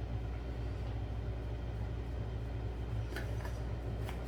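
A steady low hum, with a few faint light taps about three seconds in and again near the end.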